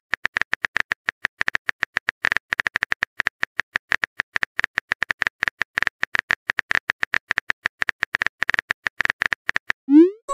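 Phone keyboard key-tap sound effect clicking rapidly and unevenly, several short, slightly pitched taps a second, as a text message is typed out letter by letter.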